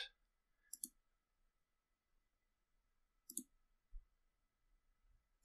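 Near silence broken by a few computer mouse clicks: a quick double click about a second in and another just past three seconds, followed by a faint low bump.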